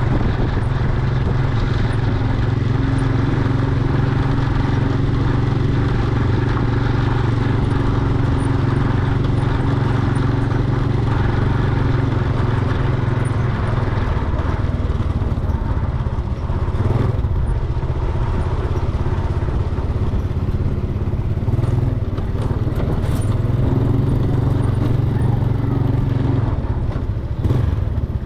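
An engine running steadily at constant speed: a low, even drone that dips slightly a couple of times, with a few faint clicks.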